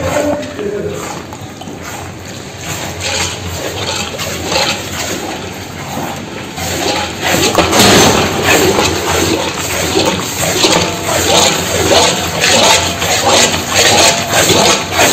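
Thin wheat halwa mixture sloshing and bubbling in a large iron kadai as it is stirred; the sound grows louder about seven seconds in.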